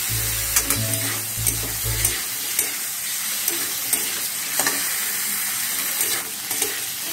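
Minced chicken in masala sizzling in hot oil in a pan while being stirred, with a spatula clicking against the pan every half second to a second. Low background music tones fade out about two seconds in.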